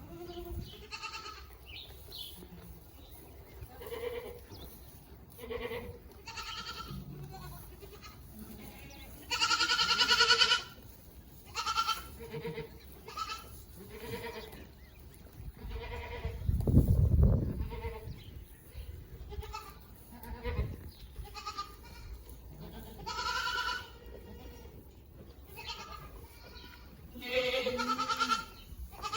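A herd of Boer goats bleating, many separate calls from different animals, some short, some held for a second or more. A brief low rumble about midway.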